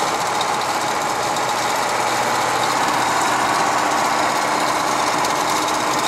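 KAMAZ 5320 truck heard from inside its cab while driving on the highway: its V8 diesel running steadily, mixed with road and wind noise.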